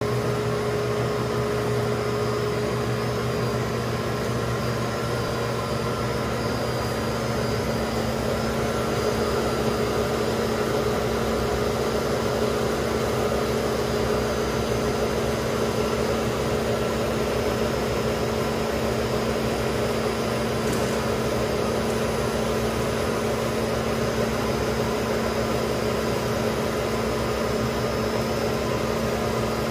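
Noodle-extruding machine running with a steady electric motor hum and whir.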